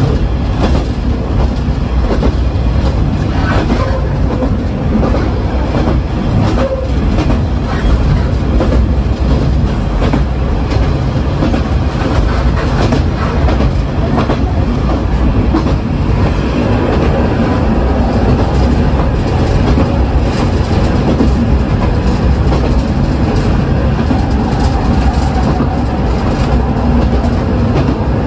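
Local diesel railcar running along the track: a steady rumble with scattered clicks from the wheels passing over rail joints.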